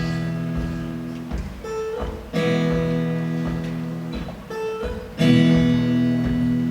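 Acoustic guitar strumming chords, each struck and left to ring for about two and a half seconds, with a few short lighter notes between the chords.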